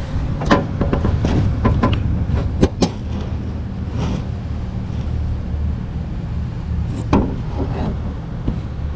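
Scattered metallic knocks and clinks of hand tools and parts as a motor mount is worked loose and pulled out of a car's engine bay, over a steady low rumble. The mount is badly worn, its rubber separated.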